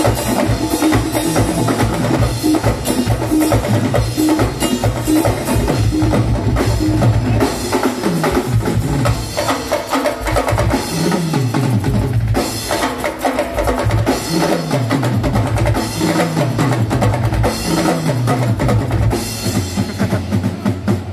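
Live drum-led band music played loud through a PA: a drum kit and hand percussion keep up a fast, steady rhythm over low notes that slide downward several times in the second half.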